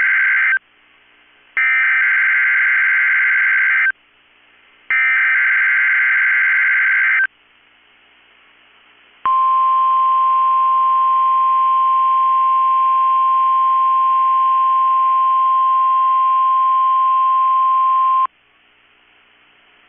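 NOAA Weather Radio Required Weekly Test alert: the end of one burst of the SAME digital header, then two more, each a couple of seconds of harsh two-tone data screech. After a short pause comes the weather radio's 1050 Hz warning alarm tone, a single steady tone held for about nine seconds that cuts off abruptly.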